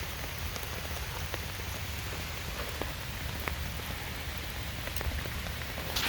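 Steady rain falling on a poncho shelter overhead, with scattered sharp taps of single drops landing close by.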